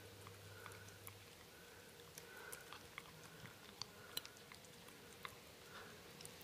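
A small dog licking and smacking peanut butter off a metal spoon: faint, wet mouth clicks and smacks scattered throughout, with a couple of sharper clicks about four seconds in.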